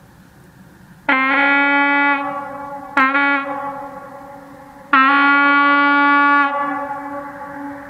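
Kovotvar European locomotive air horn sounding three blasts of one steady note: about a second, a short toot, then about a second and a half. Each blast swoops up into pitch as it opens and dies away in a long echo.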